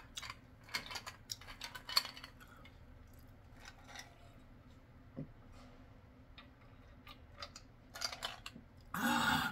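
Ice cubes clinking and rattling in a glass of cola, the clinks thickest in the first two seconds. Near the end comes a short, loud, breathy vocal sound.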